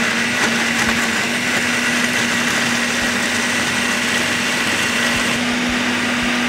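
Countertop electric blender running steadily at one speed, puréeing a wet mix of boiled onions and yogurt. The motor hum holds an even pitch.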